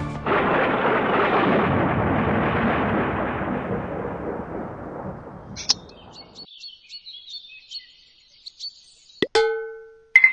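A deep rumble like thunder, fading away over about six seconds, followed by birds chirping for about three seconds and a short ringing chime near the end.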